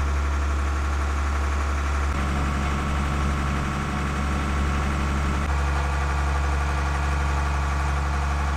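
Defever 43 trawler's port diesel engine running steadily at low throttle, a deep even drone heard from inside the wheelhouse while under way. Its tone shifts slightly about two seconds in and again past halfway.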